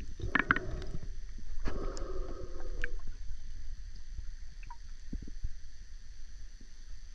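Muffled underwater sound with a steady low rumble, and two bursts of a diver's breathing, each about a second long, near the start; afterwards only a few faint clicks and knocks.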